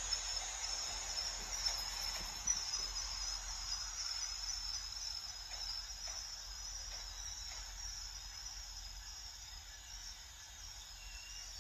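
Metrolink bilevel passenger coaches rolling past on the rails, their wheels giving a steady high-pitched hiss and ringing that slowly fades, with a few light clicks in the first seconds.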